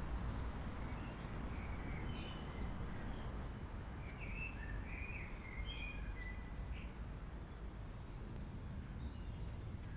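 Evening outdoor ambience: small birds chirping in short, scattered calls over a steady low background rumble, with the chirps thinning out after about seven seconds.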